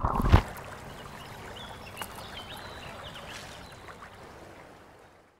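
The score ends on a brief loud hit just after the start, then faint trickling, lapping water with a few small high tones, fading out to nothing near the end.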